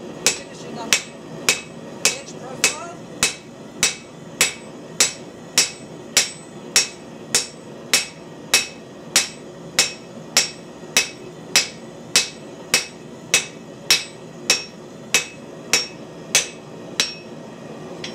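Hand hammer striking red-hot medium-high-carbon steel held in tongs on an anvil: a steady run of sharp metal-on-metal blows, a little under two a second, stopping about a second before the end.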